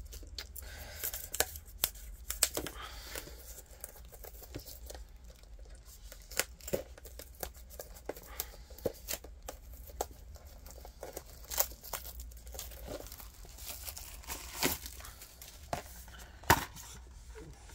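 Plastic wrapping being torn and crinkled off a Blu-ray steelbook case, with scattered sharp crackles and clicks throughout.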